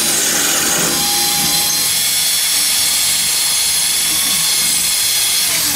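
Electric drill running steadily at full speed with a masonry bit deep in a tiled wall, with a steady high whine over the motor: the bit has struck a steel reinforcing bar inside the wall.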